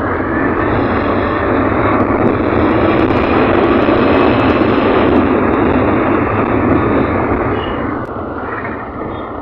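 Motorcycle running on the road at speed, its engine mixed with a steady rush of wind, swelling toward the middle and easing off near the end.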